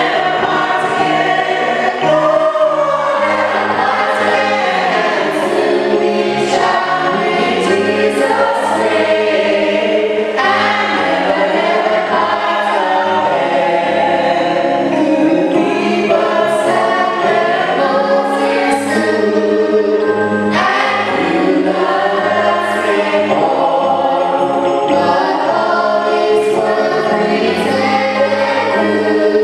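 A choir singing gospel music with instrumental accompaniment and a steady bass line.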